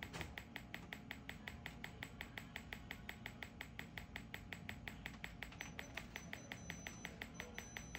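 Magnawave PEMF therapy machine pulsing: a steady, evenly spaced train of sharp clicks, about five a second.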